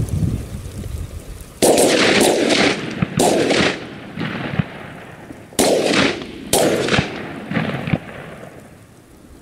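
Shotgun fire: two strings of about three shots each, a few seconds apart. Each shot is a sharp crack with a rolling echo.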